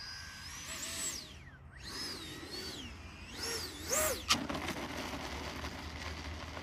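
80mm electric ducted fan of an FMS Rafale model jet whining in flight, its pitch sweeping up and down several times. A sharp click about four seconds in.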